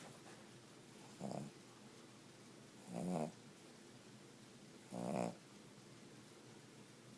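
Cavalier King Charles Spaniel snoring like a pig: three short snores about two seconds apart, the second and third louder and longer than the first.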